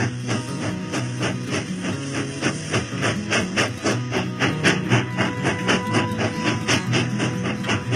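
Background music with a steady percussive beat and a bass line.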